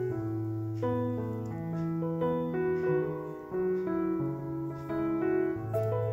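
Background piano music, with notes changing every half second or so.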